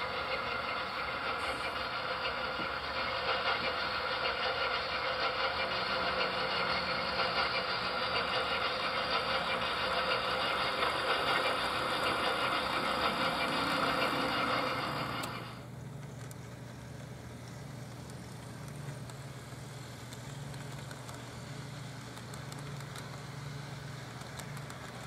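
HO-scale model locomotive's sound system playing a steady engine sound. About fifteen seconds in it drops suddenly to a quieter low hum, with the running of a model train on the track.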